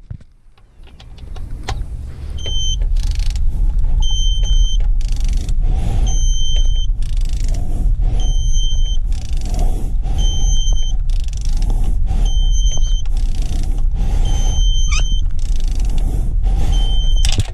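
Digital torque wrench beeping about once a second, its alarm that the set torque has been passed, as a rusty 10 mm water-pump bolt on a Subaru EJ25 engine is strained far past its 8.9 ft-lb spec, over a heavy steady low rumble. A sharp click near the end as the bolt snaps.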